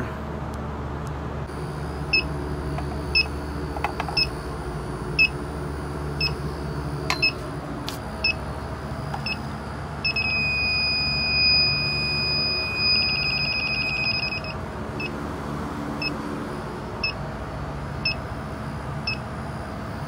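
Inficon TEK-Mate electronic refrigerant leak detector beeping about once a second as its probe is swept for trace gas. About ten seconds in it changes to a steady high tone for roughly four seconds, then goes back to its slow beeping, over the steady hum of running equipment.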